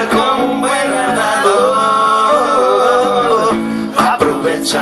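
Live band music: a man singing a melody over guitar accompaniment.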